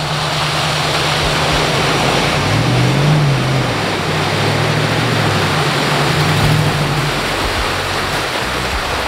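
An off-road vehicle plowing through a deep mud hole: a loud, steady rush of splashing water against the vehicle, with the engine revving up and easing off underneath, twice through the middle.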